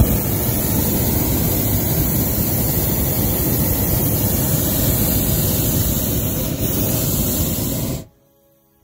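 Hot air balloon's propane burner firing overhead: one loud, steady blast that starts abruptly and cuts off about eight seconds in.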